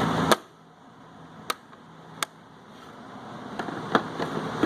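A handful of sharp, separate clicks and knocks from tools being handled in a toolbox drawer; the steady background hum cuts off suddenly after the first click.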